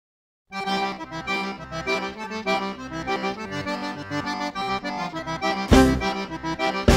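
Instrumental background music with a steady rhythm of melody notes, starting about half a second in; two heavy low beats land near the end.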